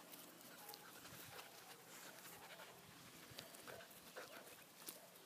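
Near silence: faint outdoor ambience with scattered small clicks and rustles.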